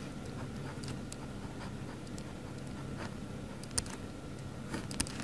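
Pen writing on paper: faint scratching strokes, with two brief sharper ticks about four and five seconds in.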